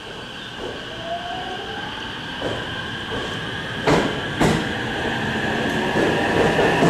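Electric commuter train pulling out along the platform, its traction motors whining with a tone that rises as it gathers speed. Two sharp clacks come about four seconds in, and the train grows louder as it passes.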